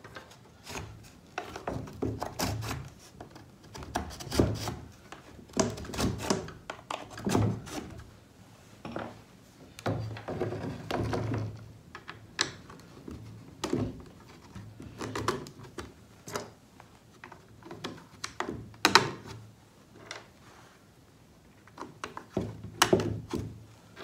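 Irregular knocks, clunks and rubbing from a segmented metal sawmill blade guard being handled and shifted on a wooden bench while a thin reinforcing strip is fitted inside its curve. The sharpest knock comes about three quarters of the way through.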